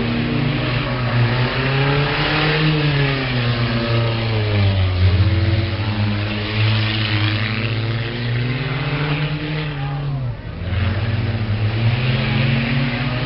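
Demolition derby car engines revving hard as the cars race laps of a figure-eight track, the pitch rising and falling as they accelerate and back off. The engine note dips briefly about ten seconds in, then picks up again.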